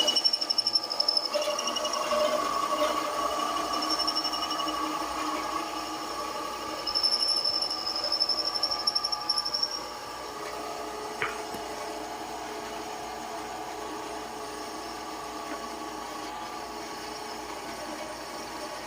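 Workshop machine running with several steady humming tones. During the first ten seconds a louder high-pitched whine comes and goes in stretches, then it settles into a quieter steady run.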